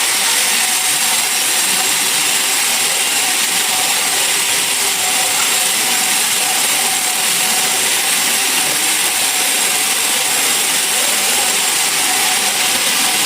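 Sawmill saw running steadily through a log, a loud continuous cutting noise without a break.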